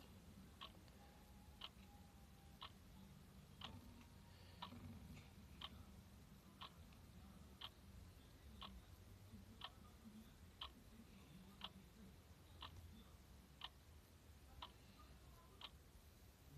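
Near silence with a clock ticking faintly and evenly, one tick a second, over a low background hum.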